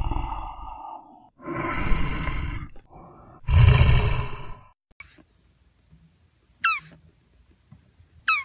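Tiger growling and roaring in three rough calls, the last the loudest and deepest. After a short quiet, two brief chirps fall sharply in pitch.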